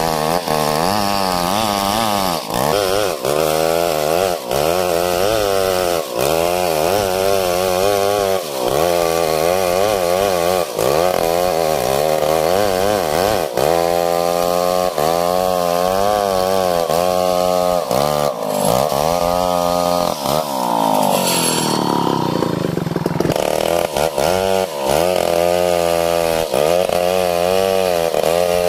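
STIHL 070 two-stroke chainsaw running at high revs while ripping a log lengthwise into beams, its pitch wavering under load. About twenty seconds in the engine note sags and then climbs back.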